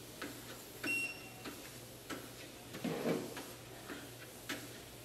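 Footsteps in sneakers on a FunMily portable treadmill belt, about two steps a second, over the steady hum of the treadmill's motor. A short high beep sounds about a second in.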